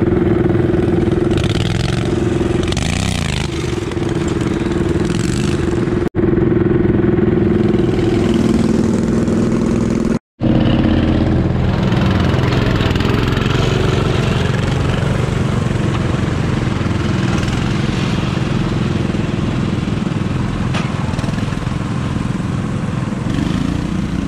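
Small garden tractor engine running steadily as the tractor is driven down a steep dirt slope, its pitch wavering with the throttle. The sound drops out briefly twice, about six and ten seconds in.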